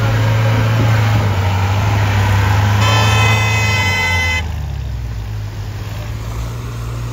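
Vehicle engines running as off-road vehicles drive through mud, a steady low drone. A vehicle horn blows once for about a second and a half near the middle, and the sound gets quieter after it stops.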